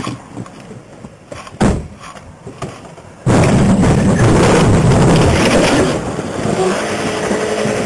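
A sedan backing into a stopped police car: a single knock about a second and a half in, then a sudden loud crash at about three seconds, with the cruiser's windshield smashing and crunching noise going on for about three seconds. After that comes steadier noise with a low engine hum.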